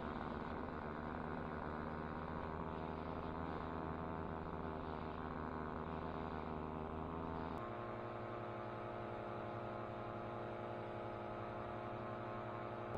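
Air Conception Tornado 280 paramotor engine running steadily in flight. About seven and a half seconds in, its note shifts abruptly to a different steady pitch.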